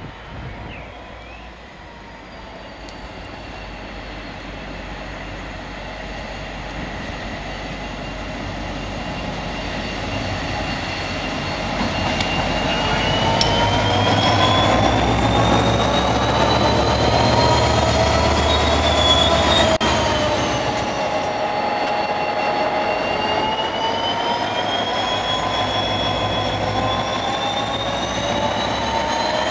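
Irish Rail 071 Class diesel locomotive with its EMD 12-cylinder engine, drawing a rake of Mark II coaches. It grows steadily louder as it approaches and passes close by. A high whine waves up and down in pitch over a low engine rumble.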